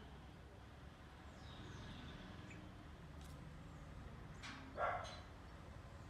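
One short, sudden animal call about five seconds in. Earlier, faint thin whistled bird notes sound over a quiet outdoor background.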